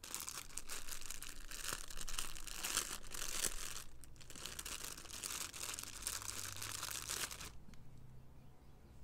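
Thin clear plastic packaging bags crinkling and rustling as hands handle them and pull socks out. There is a brief pause about four seconds in, and the crinkling stops about a second and a half before the end.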